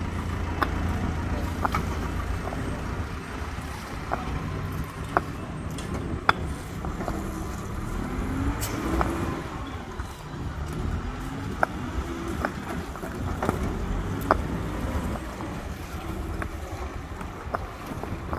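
Concrete paving stones knocking sharply against one another as they are set by hand, one irregular knock every second or so, over the steady running of a backhoe loader's diesel engine that is louder at the start and then fades.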